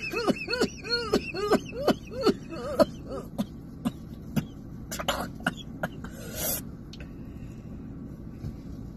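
A person coughing in a fast run of short voiced coughs, about three a second, over the first three seconds, set off by a nasal swab in the nose. A few scattered breathy coughs and breaths follow.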